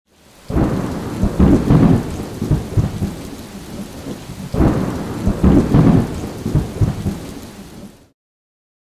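Thunder: two long rolls, the second starting about four and a half seconds in, cutting off abruptly about a second before the end.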